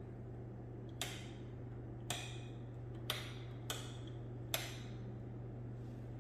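Footsteps: hard shoe soles clicking on a hard floor, six sharp steps at a slow, uneven pace of roughly one a second, over a steady low hum.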